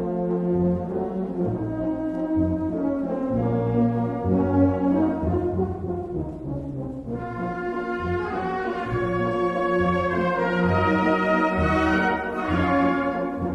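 Background music: an instrumental piece played by brass instruments, horns carrying a slow melody over a bass line that moves in regular steps.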